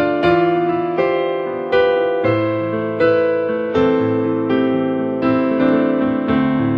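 Solo piano playing unhurried music. Notes and chords are struck about twice a second, and each one is left ringing and fading.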